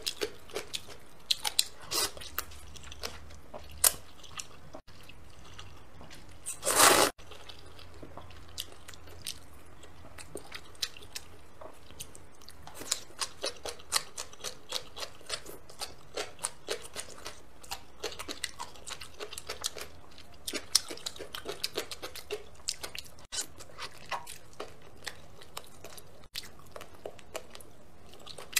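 Close-miked eating: wet chewing and smacking mouth clicks as spicy rice noodles and meat are eaten, with one louder slurp of about half a second near seven seconds in.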